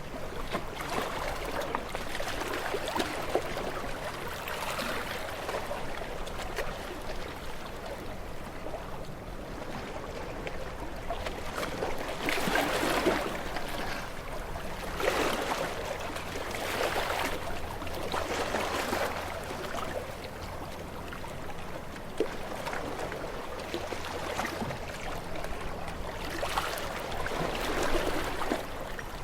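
Gentle waves washing onto a beach, in a series of irregular surges that swell and fade every couple of seconds. The strongest washes come about halfway through.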